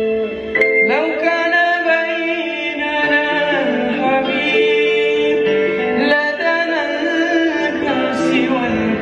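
Music: a singing voice in wordless, gliding melodic runs over sustained instrumental chords.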